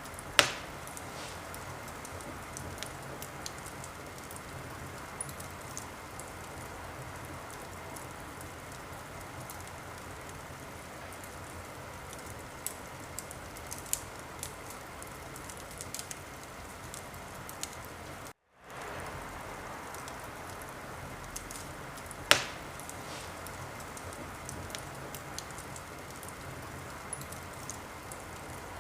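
Wood fire crackling steadily in a fireplace, with frequent small crackles and two loud pops, one just after the start and one about 22 seconds in. The sound cuts out completely for a moment about two-thirds of the way through.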